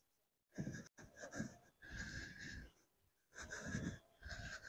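A person breathing hard and audibly in and out, about five short breaths, from the effort of pedalling a heavy bike.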